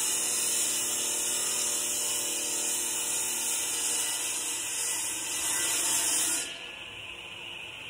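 Wet masonry saw cutting through a concrete block: a loud, high-pitched grinding from the blade in the concrete. About six and a half seconds in the grinding stops suddenly as the blade leaves the cut, and the saw is left running more quietly.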